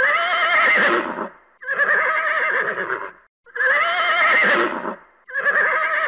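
Horse neighing: four whinnies in a row, each about a second and a half long with a quavering pitch, separated by short gaps; the same pair of neighs plays twice.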